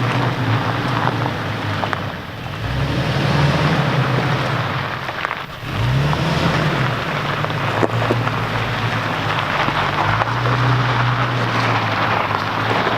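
Toyota Tacoma pickup's engine pulling at low revs in four-wheel-drive high as the truck crawls over rocks, the revs swelling a few times. Rough tyre and trail noise runs underneath, with a few sharp knocks.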